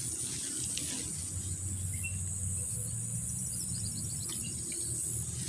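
Steady high-pitched drone of insects, with a low hum underneath and a brief run of faint high chirps a couple of seconds in.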